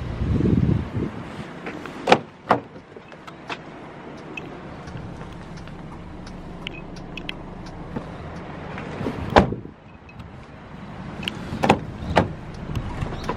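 Doors of a 2013 Kia K5 sedan being handled: handle and latch clicks and knocks, two about two seconds in, a sharper one a little past nine seconds, and two more near twelve seconds, over a steady low hum. A brief low rumble comes at the very start.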